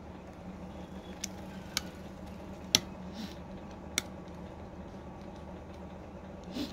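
A few sharp small clicks, the one near three seconds the loudest, as the NFC and wireless-charging coil and its flex connector are pressed and snapped into place inside a Samsung Galaxy S20 phone frame, over a steady low hum.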